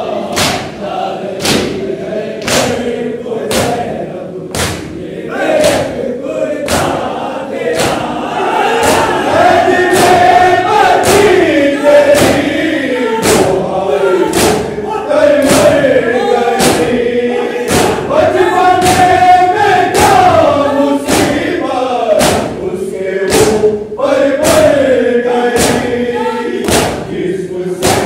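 Urdu noha chanted by a group of men in unison behind a lead reciter. It goes over rhythmic matam, with many hands striking chests together about once a second.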